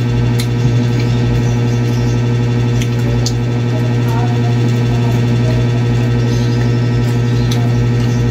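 Loud, steady low hum that does not change, with a few faint clicks over it.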